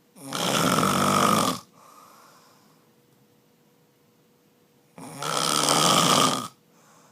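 A sleeping man snoring loudly: two long snores about five seconds apart, each lasting about a second and a half and followed by a fainter breath.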